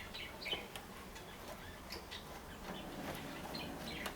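Birds chirping, with occasional light clicks.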